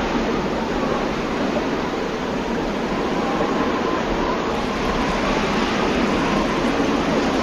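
Steady, even rushing noise with no rhythm and no pitch, holding one level throughout.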